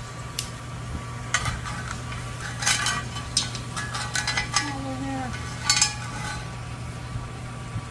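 Metal tongs clinking and scraping against a cast-iron grill pan and the oven rack as sweet potato slices are turned, in a scatter of sharp clinks, over a steady low hum.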